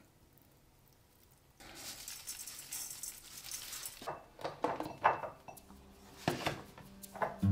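Small household handling sounds: a soft rustle, then a series of light clinks and knocks, like hard objects set down or tapped together.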